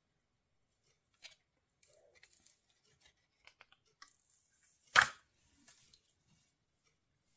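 Light rustling and small clicks from a tempered-glass screen protector and its plastic backing being handled and peeled, then one sharp click about five seconds in as the glass is laid onto the phone screen.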